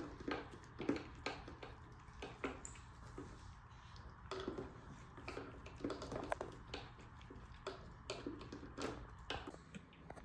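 Small dogs eating from their bowls, one of them a metal bowl: a faint, irregular run of small clicks and taps as the food and bowls are nosed about and chewed.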